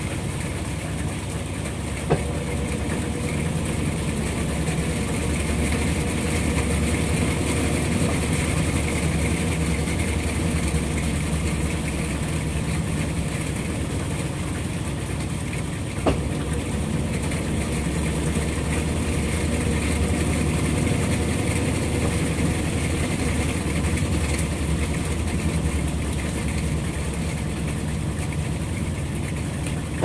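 Consul 16 kg top-load washing machine running with a steady motor hum. Two short clicks come about two seconds in and again about sixteen seconds in.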